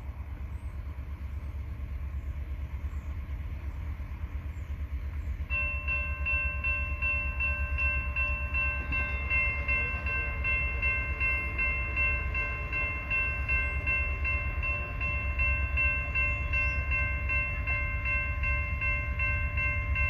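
Railroad crossing bell starting suddenly about five seconds in and ringing steadily in a fast, even pulse, as the crossing signal is triggered by the approaching train, over a low steady rumble.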